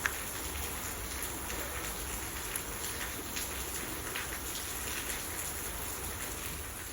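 Light ticks and taps as a cap is fitted on an A/C condenser's receiver drier, over a steady hiss.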